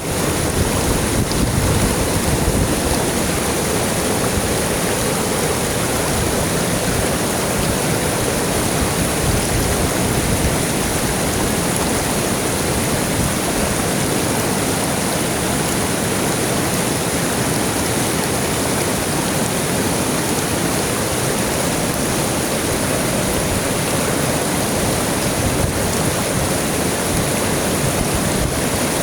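River water flowing, a steady, unbroken rushing.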